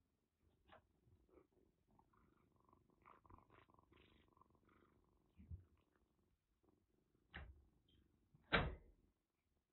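Kitten purring faintly while kneading a padded cushion, with soft rustles and taps of its paws. A short, louder rustling thump comes near the end.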